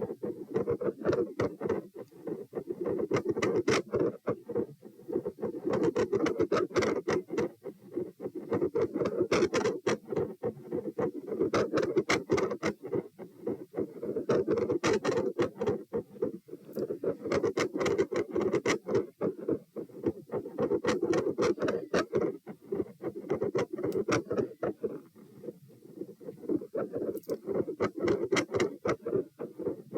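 Heart sounds heard through a stethoscope at the pulmonic position, with dense scratchy clicks from the chest piece. A noisy whoosh swells and fades every few seconds.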